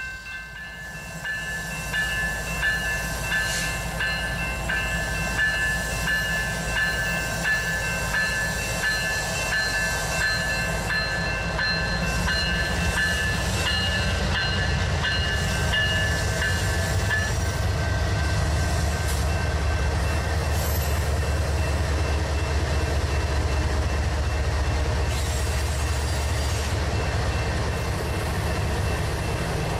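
Railroad crossing bell ringing steadily, falling away a bit over halfway through as a diesel freight locomotive's engine rumble grows and passes. Then a steady rumble of freight cars, autoracks among them, rolling over the crossing.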